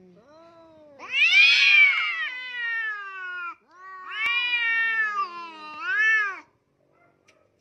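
Domestic cats yowling in an aggressive face-off. A faint low growl comes first, then two long drawn-out yowls that waver up and down in pitch; the first is the loudest.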